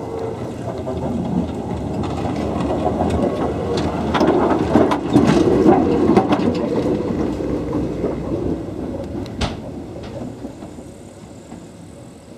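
Kirnitzschtalbahn electric tram running past on its metre-gauge track: a rolling rumble of motors and wheels on rail that swells as it comes close, then fades as it draws away. Sharp wheel-on-rail clicks sound through the pass, with one loud click near the end.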